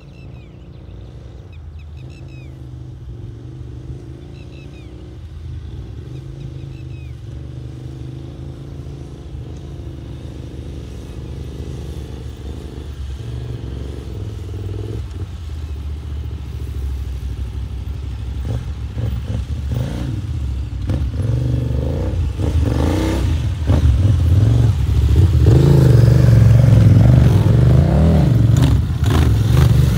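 Two twin-cylinder adventure motorcycles, a Ducati DesertX and a KTM 990 Adventure, riding off-road over rough sandy ground. Their engine note starts faint and grows steadily louder as a bike climbs toward and close past, with uneven throttle surges and a few knocks; it is loudest in the last several seconds.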